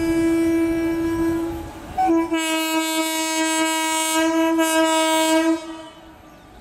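Air horn of an Indian Railways WAG-5 electric locomotive sounding one steady held note. It breaks off briefly about two seconds in, then comes back louder and cuts off sharply about five and a half seconds in.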